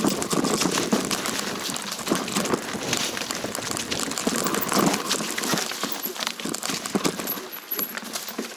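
Irregular crunching and clattering of movement over a rough mountain trail of stones and dry debris, a dense run of small clicks and scrapes without pause.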